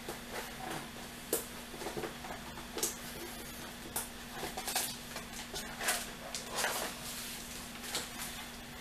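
Cardboard box and a sleeved print being handled: irregular rustling, crinkling and light scrapes and taps, over a steady faint hum.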